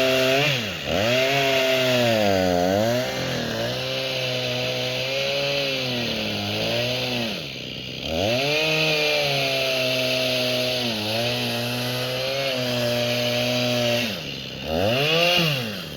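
Two-stroke chainsaw running hard, its engine pitch dipping sharply and climbing back again several times.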